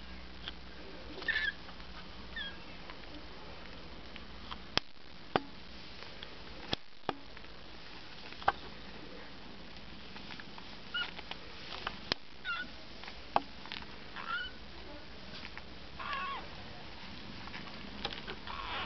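Newborn Siamese kittens, eight days old, giving short high-pitched squeaky mews every few seconds. A few sharp clicks come between them.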